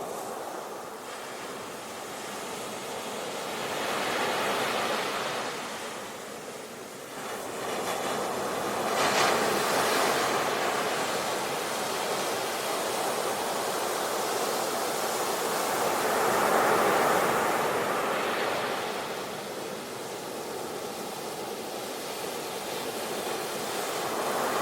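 Sea waves breaking and washing over a shore, the surf swelling and easing every few seconds in slow surges.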